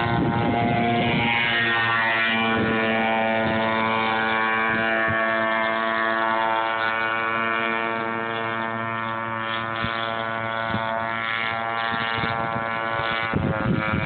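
Radio-controlled model boat's motor running with a steady whine, holding nearly the same pitch and getting a little quieter in the second half.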